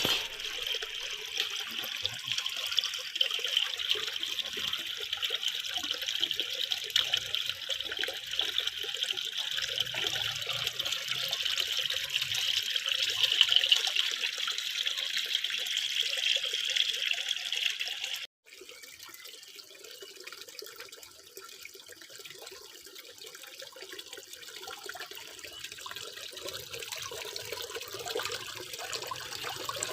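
Water from a fish-pond pump's outflow splashing and pouring steadily. About 18 seconds in it cuts abruptly to a quieter flow of water.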